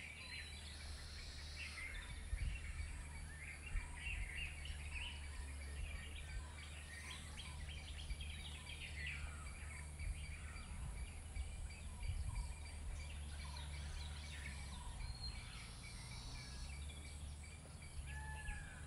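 Several birds chirping and calling, with many short chirps and a few gliding whistles, over a steady low hum.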